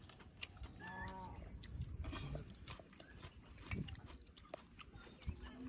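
A person eating curry and rice by hand: faint wet chewing and lip-smacking clicks, with one brief pitched call about a second in.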